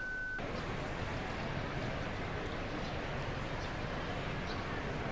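A steady high tone cuts off abruptly about half a second in, giving way to a steady hiss of outdoor crowd ambience with faint murmur on open ceremony microphones.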